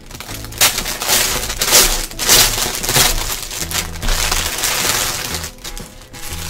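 Clear plastic poly bag crinkling loudly as it is handled and pulled open and a pair of shorts is drawn out of it. The crinkling is densest in the first half and thins out later.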